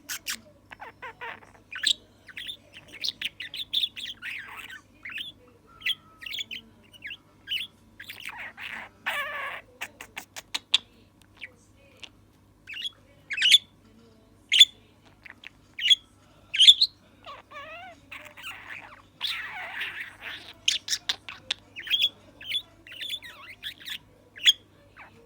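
Male budgerigar calling in many short high chirps, broken by stretches of scratchy chattering warble and a quick zigzagging run of notes. It is a young budgie's chatter from before it has learned to mimic words.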